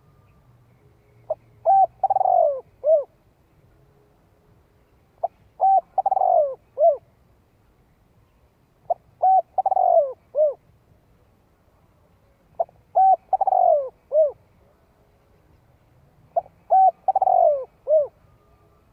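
Spotted dove cooing: five matching phrases about every four seconds, each a couple of short notes, a longer falling coo and a short closing note.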